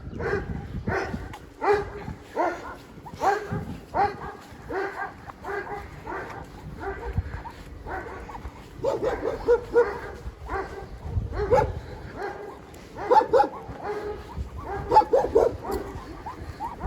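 Huskies vocalising in a long run of short, pitched whines and yelps, one after another, busier and louder from about nine seconds in.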